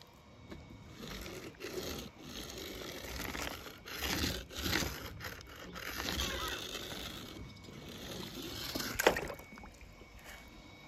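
Irregular scraping and rustling of objects being handled and moved over a rough surface, with one sharp click about nine seconds in.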